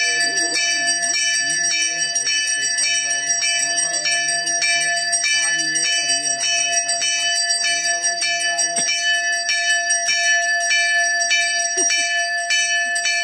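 Temple puja bell ringing continuously, struck in quick, even strokes throughout, as is done while the idol is worshipped.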